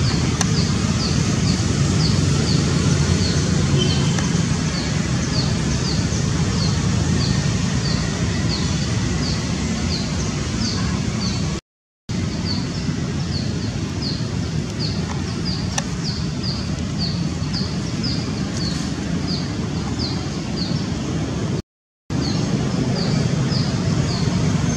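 Outdoor ambience: a steady low rumble with a short high chirp repeated about twice a second, cut by two brief dropouts to silence, about twelve and twenty-two seconds in.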